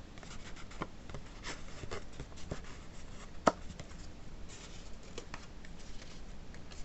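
Paper card stock being handled and pressed by hand: light rustling and small taps, with one sharp click about halfway through.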